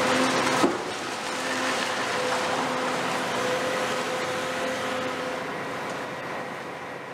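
Cat 390F excavator's 18-litre Cat C18 diesel engine running under working load, with a steady rushing noise over it. A sharp knock comes about half a second in, after which the engine note drops. The sound slowly fades out toward the end.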